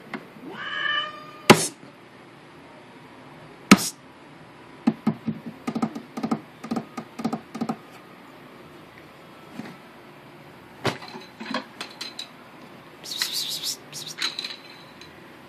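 A cat's brief pitched cry about half a second in. Two loud sharp clicks follow, then a run of soft knocks, with a short hissing burst near the end.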